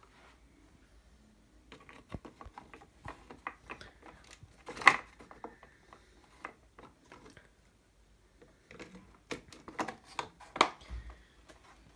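Irregular small clicks and taps of tools and small parts being handled. There is one sharp, loud click about five seconds in and a quick run of clicks near the end.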